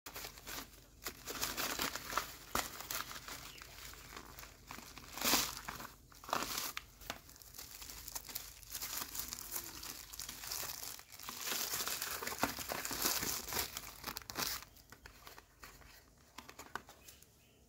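Plastic packaging, a courier mailer bag and then bubble wrap, crinkling and tearing as it is pulled open by hand: a run of irregular crackles and rips that dies down near the end.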